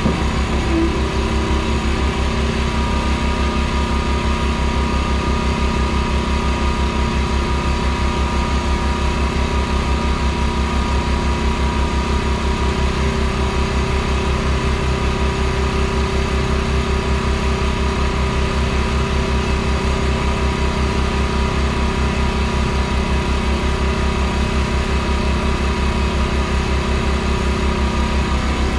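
Caterpillar C15 diesel engine of a Kenworth T800 semi idling steadily, with an even low pulse and a thin steady whine on top that do not change.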